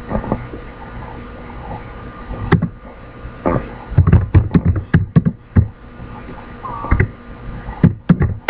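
Computer keyboard keys clicking as a word is typed: a quick run of about seven keystrokes a little past the middle, then single strokes and a few more near the end, over a steady electrical hum.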